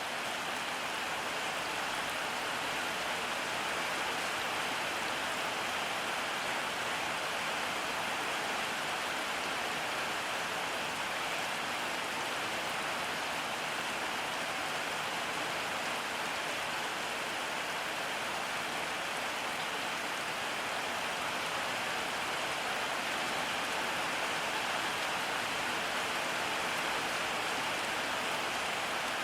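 Steady rain falling, an even unbroken hiss of rainfall.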